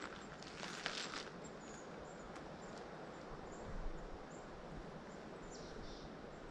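Faint outdoor ambience: a steady hiss with scattered short, high chirps, and a brief rustle about a second in.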